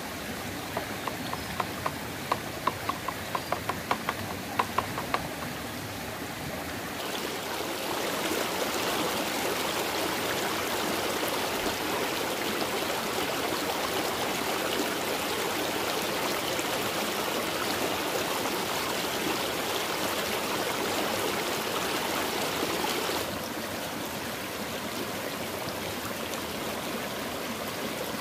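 Shallow rocky stream running and splashing over stones, louder from about seven seconds until about twenty-three seconds in. For the first five seconds a quick run of short, sharp ticks sits over the water.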